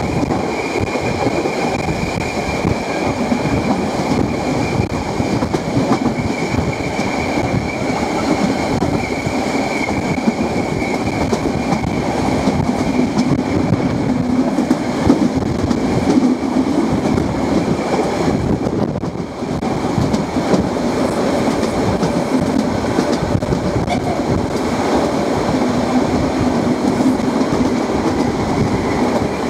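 Bäderbahn Molli narrow-gauge steam train running on its rails: a steady, loud rolling rumble with clickety-clack, and a thin high wheel squeal that comes and goes.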